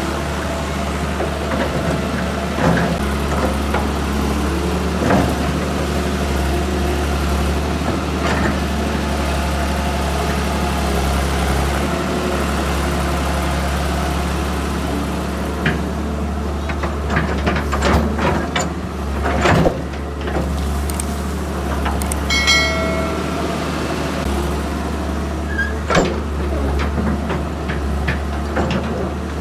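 Tata Hitachi EX200 excavator's diesel engine running steadily under work, with sharp knocks and clanks from the machine, mostly in the second half, and a brief high squeal about three-quarters of the way through.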